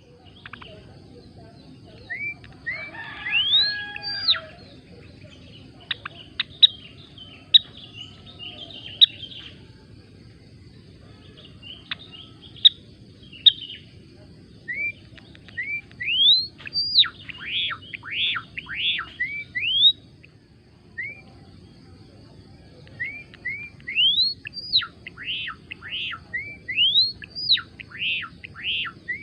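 A gelatik belong (Java sparrow) singing in repeated bouts. Each bout opens with short notes that rise steeply in pitch, then breaks into a quick run of sharp downward-sweeping chips, with short pauses between bouts. A steady low hum runs underneath.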